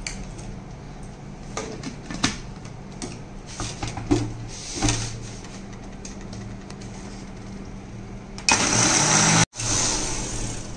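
A few light knocks as a plastic blender jar is set on its motor base, then, about eight and a half seconds in, the electric mixer-grinder starts and runs loudly for about two seconds, blending bael fruit pulp with milk and sugar into a shake.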